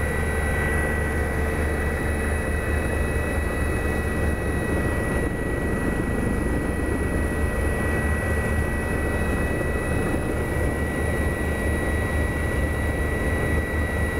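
Helicopter running steadily: a continuous low throb of the rotor and engine with a steady high whine over it.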